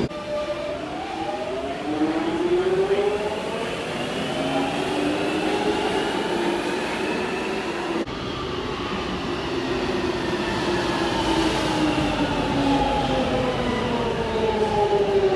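London Underground Jubilee line train running, its traction motors whining in several tones over a steady rumble. The tones rise and then sink in pitch, break off abruptly about eight seconds in, then rise and sink again as the train moves along the platform.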